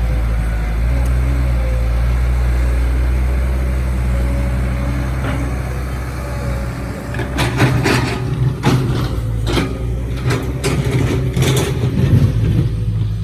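Excavator's diesel engine running steadily, with a string of sharp clanks and knocks starting about halfway through.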